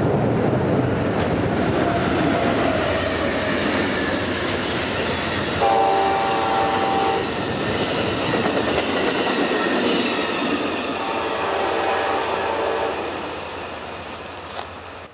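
Amtrak passenger train led by an ALC-42 locomotive rolling past with its bilevel cars, wheels clattering on the rails. The horn sounds twice, a short blast about five and a half seconds in and a longer one about eleven seconds in. The train noise fades near the end.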